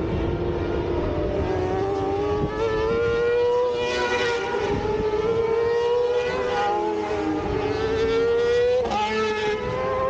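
Racing motorcycle engines at high revs on the track. A high, piercing engine note climbs slowly in pitch, and a second, lower note falls away about seven seconds in as another bike goes by.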